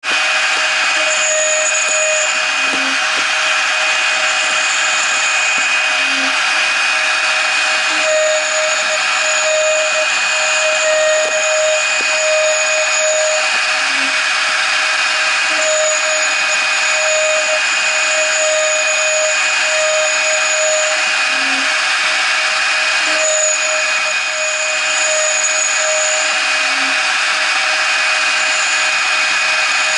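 A CNC router's 0.75 kW spindle with a 2 mm end mill machining aluminium angle. It gives a steady high whine over dense cutting noise, with a lower cutting tone that breaks off and returns every few seconds.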